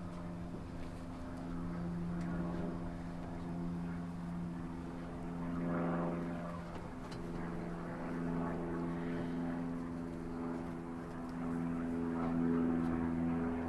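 A steady, pitched engine drone with a low rumble beneath it, which cuts off suddenly at the end.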